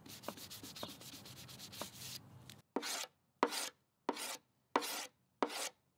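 Hand scraper scraping old finish off walnut veneer: first a continuous rasping scrape, then from about two and a half seconds in a run of short, evenly spaced scraping strokes, about one every 0.7 s.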